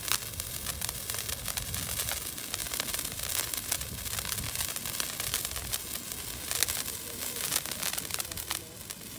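Japanese handheld firework burning, shooting a jet of sparks: a steady fizzing hiss peppered with crackling.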